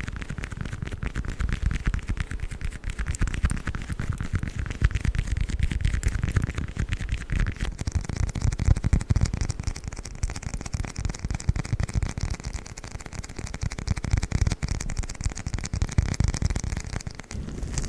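Close-miked tacky rubber sounds: sticky gloves rubbed and peeled against the microphone, giving a dense run of tiny crackles and clicks. About eight seconds in the sound changes as a sticky crawler toy takes over.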